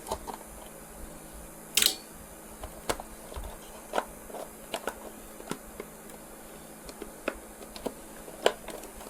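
Scattered light clicks and knocks of a plastic headlight mask and its hardware being handled and worked loose from a dirt bike, with a louder clatter about two seconds in.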